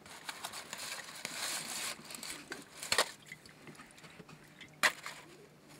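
Handling noise from an MSR Dragonfly camp stove and its fuel bottle being set up: a couple of seconds of rustling, then two sharp clicks about two seconds apart.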